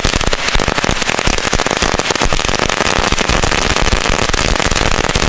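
A Vulkan Mandarin Cracker 500 firecracker string going off: a dense, rapid, continuous rattle of small loud bangs.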